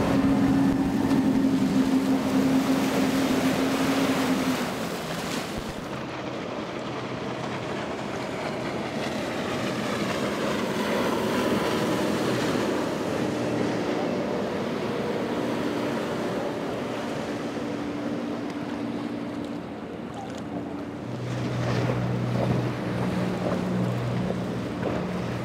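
Bertram sportfishing yachts' inboard engines running at speed, a steady low drone whose pitch changes a couple of times, over the rush of the wake and wind buffeting the microphone.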